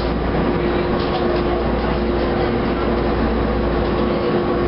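Interior of a TTC H6 subway car (UTDC-built) running along the track: a steady rumble of wheels and rail, with one constant hum over it.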